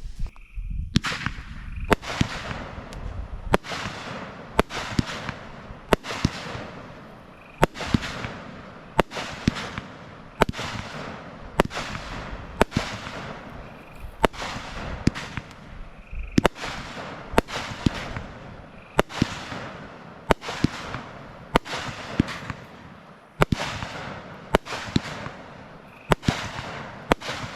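Doremi 'Lost Light' 25-shot consumer firework cake firing in steady succession, roughly one shot every second or so. Each shot is a sharp bang that trails off; these are single brocade-crown and titanium gold coconut breaks.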